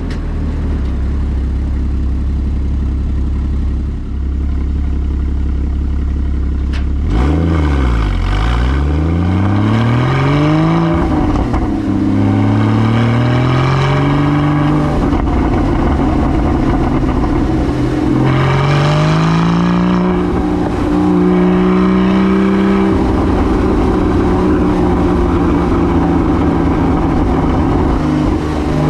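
Porsche 981 Cayman GT4's 3.8-litre flat-six engine running at low, steady revs for about seven seconds. The revs then dip and climb, and the pitch rises in stages with brief drops in between, as the car accelerates through the gears.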